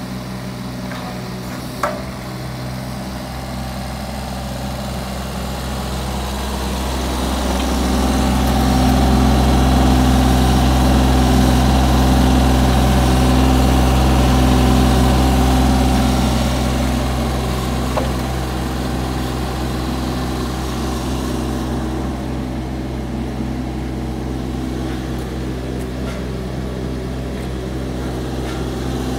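A JCB 16C-1 mini excavator's diesel engine idling steadily, growing louder for several seconds in the middle and then easing back.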